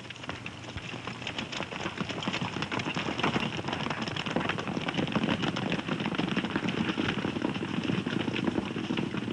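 Hoofbeats of several galloping horses, a dense clatter that grows louder over the first two seconds or so and then holds steady.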